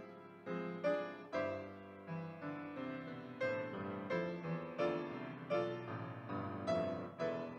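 Solo piano playing a slow, gentle piece, with notes or chords struck about twice a second, each dying away.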